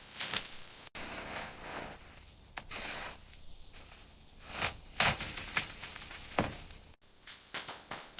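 A string of short building-work noises: scattered taps, scrapes and swishes. The sound cuts off abruptly about a second in and again near the end, as in a spliced montage.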